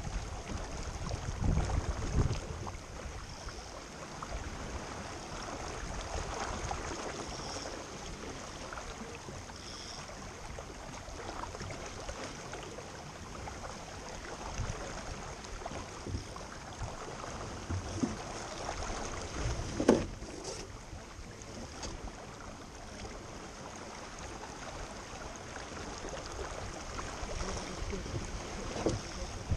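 Wind and water noise from a boat out on the water: a steady rushing wash with a few low bumps, the sharpest about 20 seconds in.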